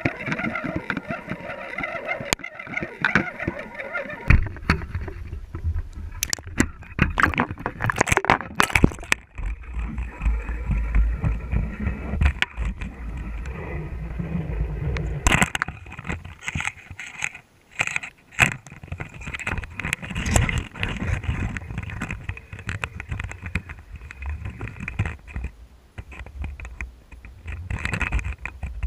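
Underwater sound inside a GoPro's waterproof housing as the camera moves through the water and along the seabed: a low rumble of water flow with many scattered knocks and clicks against the housing. For the first few seconds a steady whine sits over it.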